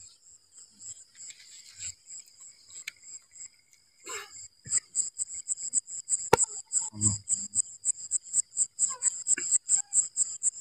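Crickets chirping in a rapid, even pulse, about five chirps a second, louder from about four seconds in. A single sharp click a little after six seconds in.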